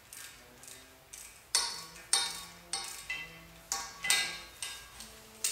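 A series of sharp metallic clicks, about one every half-second, each with a short ringing tone, as a wrench works a counterweight nut off its stud on a Rolls-Royce Phantom III crankshaft.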